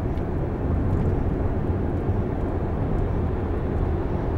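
Steady in-cabin running noise of a Nissan Serena minivan on the move: low road and tyre rumble with the engine underneath.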